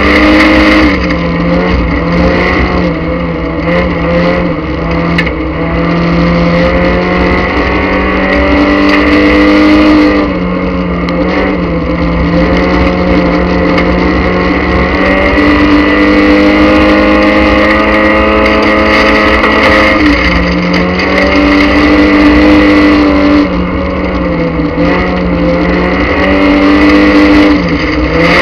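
Speedway race car's engine heard loud from inside the roll-caged cabin, running hard under load. Its note dips and climbs back again roughly every ten seconds as the car laps the dirt oval.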